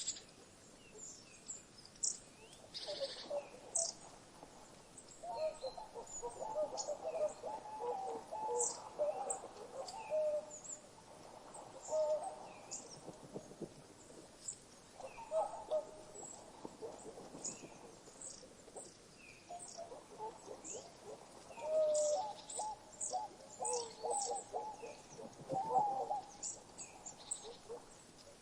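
Mixed birdsong ambience: many short, high chirps scattered throughout, with several longer bouts of lower-pitched calling from other birds.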